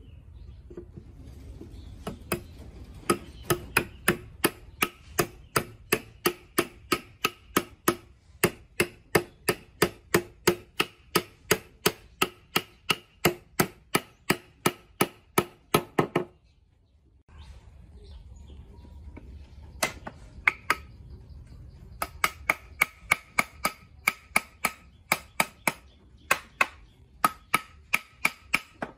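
Wooden mallet knocking on a hardwood chair frame, driving the rails home into the leg joints, at about two to three strikes a second; each knock rings briefly in the wood. The knocking stops for a few seconds past the middle, then starts again.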